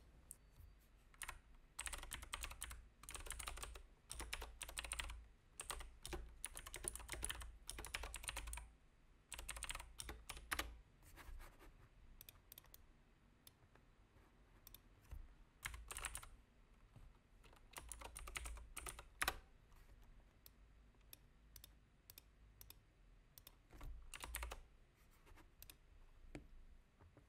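Faint typing on a computer keyboard: a long run of rapid key clicks, then shorter bursts later on, with scattered single clicks between.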